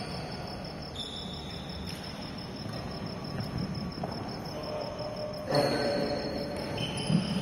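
A high, fast, evenly pulsing chirp like a cricket's, going on steadily. Two sharp knocks sound in the last two seconds, the first about five and a half seconds in.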